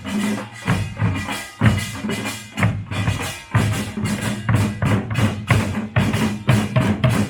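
Pungmul, Korean folk percussion, played live: drums beaten in a steady driving rhythm, about two strong beats a second, with a ringing tone over them.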